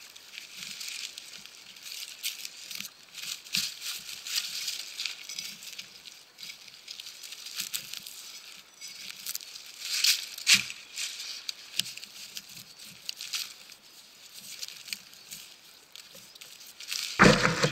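Serrated hand digging trowel scraping and crunching through soil and dry leaf litter in irregular strokes, with a louder scrape about ten seconds in. A loud knock near the end.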